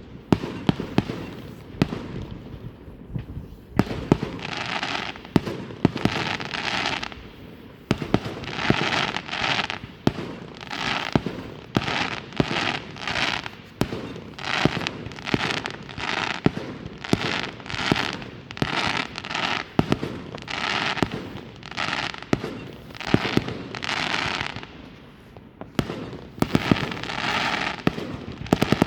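Fireworks going off in quick succession: many sharp bangs and pops, with hissing, crackling bursts about a second long, one after another.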